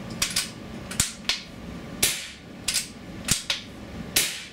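A QB78 Deluxe .22 CO2 air rifle converted to regulated 850 psi tank air being fired, mixed with the clicks of working its bolt between shots. The result is a run of about eight sharp cracks and clicks in under five seconds, unevenly spaced, the loudest about two seconds in.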